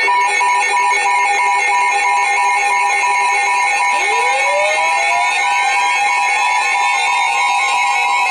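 Emergency Alert System attention signal: loud steady alert tones held without a break, with several tones layered together and some pulsing on and off. About four seconds in, a rising tone climbs for a second or so. The tones herald a National Weather Service severe thunderstorm warning.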